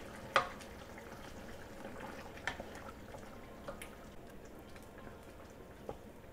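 Wooden spatula stirring chicken pieces in a simmering yogurt gravy in a stainless-steel pot, with a few sharp knocks of the spatula against the pot, the loudest about half a second in, over a low steady bubbling.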